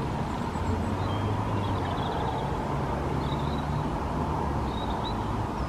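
Steady low outdoor rumble, with a few faint, short high chirps over it.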